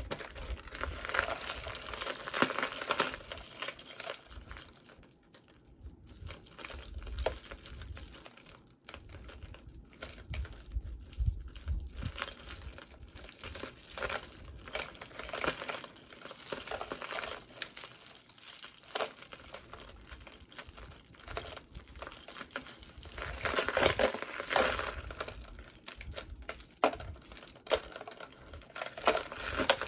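Metal jewelry clinking and rattling while necklaces and chains are handled and set down, with irregular small clicks and rustles.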